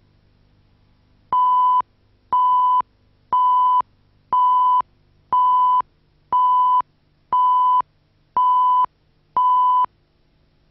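Countdown leader beeps: nine identical, steady electronic beeps, one each second, each about half a second long, marking the count down to the start of the programme.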